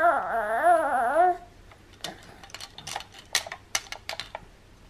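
A baby whining in a fussy mood, one wavering, high whimper lasting about a second and a half, which his mother takes for frustration at wanting to do things he can't yet manage. After it come a scatter of light clicks and taps.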